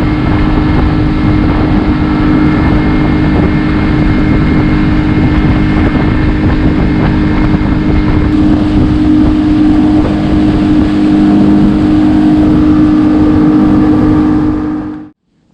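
Outboard motor running steadily at speed, pushing a small boat along, with a strong steady hum and rushing noise; it cuts off abruptly near the end.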